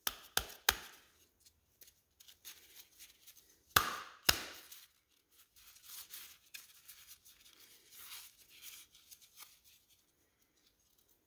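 Metal parts of a transfer case oil pump being handled on a steel workbench: sharp knocks and clinks, three early and the two loudest about four seconds in, with quieter taps and rubbing between.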